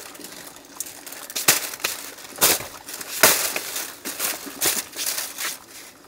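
A run of irregular crunching and crinkling noises: a dozen or so sharp crackles and rustles at uneven intervals, the loudest about a second and a half, two and a half and three seconds in.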